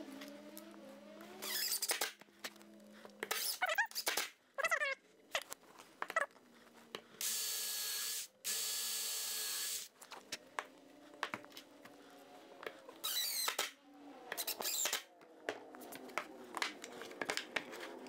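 Cordless drill boring pilot holes into a wooden bracket in several short runs, the two longest about a second each near the middle, one spinning up with a rising whine. Short clicks and knocks of handling come between the runs. The holes are drilled deeper to keep the wood from splitting.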